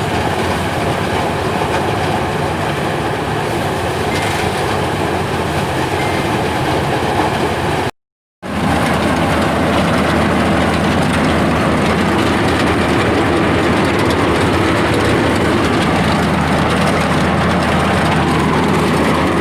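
Loud, steady mechanical rumble of a running machine, with a brief cut-out to silence about eight seconds in.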